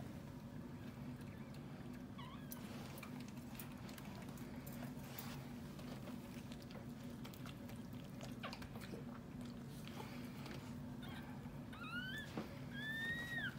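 Newborn Miniature Schnauzer puppy squeaking: a few short rising squeaks, then one longer arching cry near the end. Under it runs a steady low hum with scattered small clicks and rustles.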